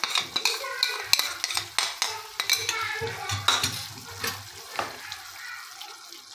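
Tomato gravy sizzling in a steel saucepan while yogurt is scraped in with a spoon and stirred through, with a run of scraping and tapping clicks against the pan. It gets quieter toward the end.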